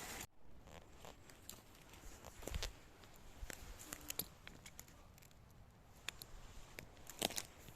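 Faint rustling and crackling of dry fallen autumn leaves being walked through, a scatter of small sharp crackles with louder ones about two and a half seconds in and near the end.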